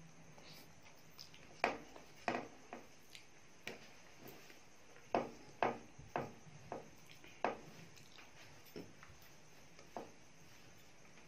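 Close-up eating sounds of rice and dal eaten by hand: a string of short, irregular wet smacks and clicks from chewing and from fingers working the rice on the plate, with a few louder ones around the middle.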